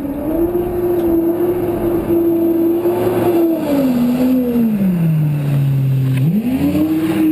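Kawasaki ZX-10 inline-four motorcycle engine driving a home-built jet dinghy's jet pump. It runs at steady high revs, then eases off so the revs fall away over a couple of seconds, and opens up sharply again about six seconds in.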